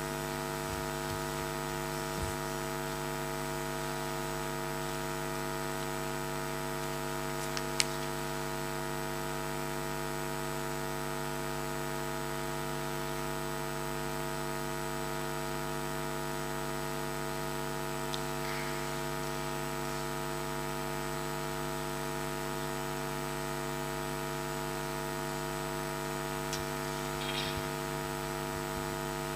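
Steady mains hum from an amplified sound system, several steady tones held without change, with a faint click about eight seconds in.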